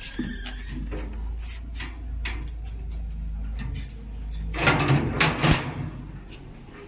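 Rubbing and rustling of a handheld phone's microphone against clothing as it is carried, over a steady low rumble, with a cluster of knocks and clatter about five seconds in.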